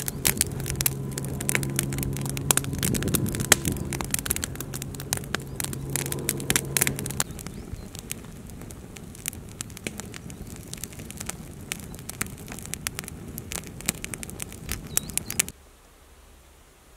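Teepee-lay campfire of thin sticks crackling, with many sharp pops. For the first seven seconds or so a low, steady multi-tone hum sits beneath it. The crackling stops suddenly near the end.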